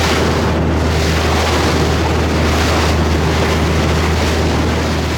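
Sightseeing boat's engine running steadily with a low hum, mixed with wind buffeting the microphone and rushing sea noise.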